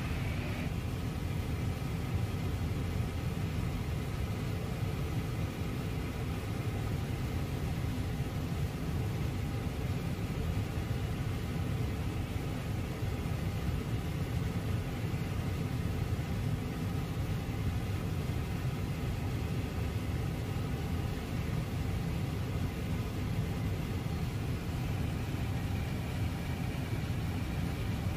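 Steady low rumble of air and machinery in an Airbus A320 cockpit with the aircraft's systems powered on, with a faint even hum of tones above it.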